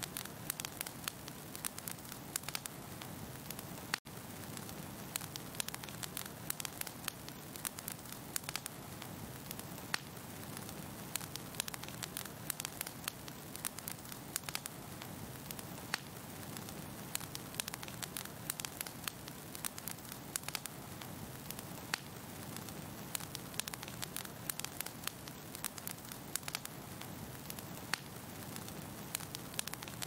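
Fire crackling: a steady rush of flames with frequent sharp pops and snaps, and a brief gap about four seconds in.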